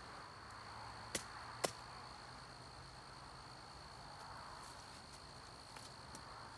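Two sharp wooden clicks about half a second apart, a little over a second in, as sticks are handled, over a steady high-pitched drone of insects.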